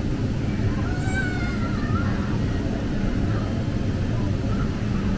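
Steady low rumble, with faint high voices calling about a second in.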